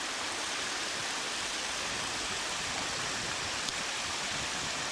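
Steady rushing hiss at an even level, with one faint click a little under four seconds in.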